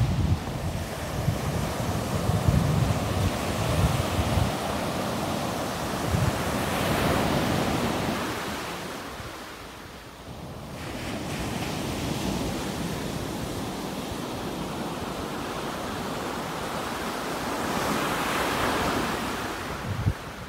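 Ocean surf breaking and washing up a shelly sand beach, the rush of water swelling about a third of the way in and again near the end. Wind buffets the microphone with a low rumble in the first few seconds.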